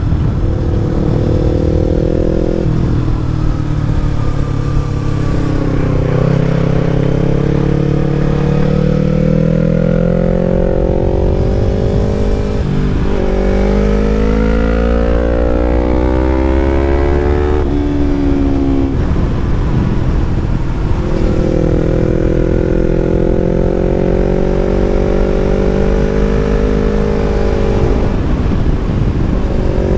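2016 Yamaha MT-03's 321cc parallel-twin engine through an Arrow Thunder full-system exhaust, under way: the note climbs and drops back several times as it is revved up and shifted, then holds fairly steady for a stretch before one more change near the end.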